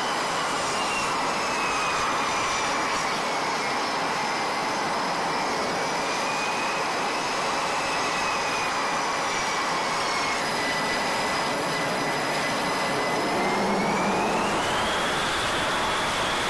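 F/A-18 Super Hornet jet engines (twin turbofans) running at low power, a steady loud rush with a high turbine whine. The whine sinks slowly in pitch, holds, then rises about thirteen seconds in as the engines spool up a little.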